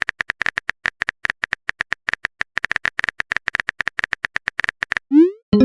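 Texting sound effect: fast, irregular keyboard taps on a phone, each a short click with a little beep, about eight a second. Near the end comes a short rising swoosh and a chime.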